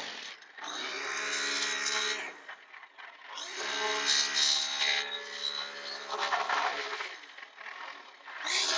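Electric power tool running in several bursts of one to two seconds each, its motor holding a steady pitch, with short pauses between bursts.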